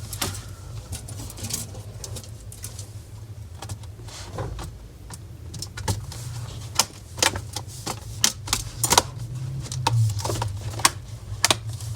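Small sharp clicks and taps of laptop internals being handled as the battery connector is plugged back in and the connector latches are snapped shut, irregular and more frequent in the second half, over a steady low hum.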